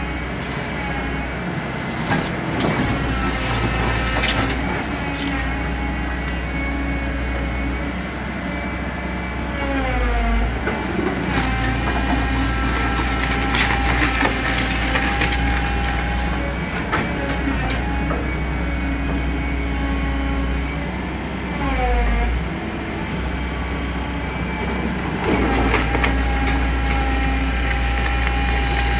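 Crawler excavator working: its diesel engine runs steadily while the hydraulic whine sags and recovers in pitch a few times under load, with scattered knocks and scraping as the bucket digs through wet mud and rubble.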